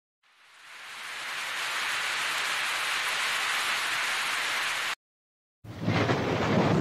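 Steady rain-like hiss that fades in over the first two seconds and cuts off suddenly about five seconds in. After a brief silence, a louder, rougher noise with a low rumble starts.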